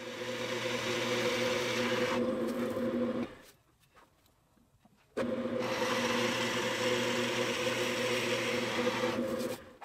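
Drill press running with a 1-1/16 inch Forstner bit boring flat-bottomed holes into half-inch maple, a steady motor hum under the hiss of the bit cutting. Two holes, with a break of about two seconds between them.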